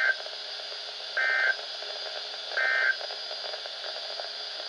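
Emergency Alert System end-of-message signal: three short, buzzy digital data bursts about 1.4 s apart, closing a broadcast tornado warning, over the steady hiss of the radio broadcast.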